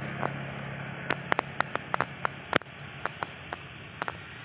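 Steady outdoor hiss with a low vehicle engine hum that fades out about halfway through, and a scatter of sharp, irregular ticks.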